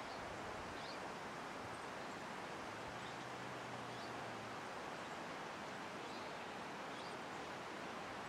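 Steady outdoor rushing noise with a few faint, short, high bird chirps scattered through it, and a faint low hum for a second or so in the middle.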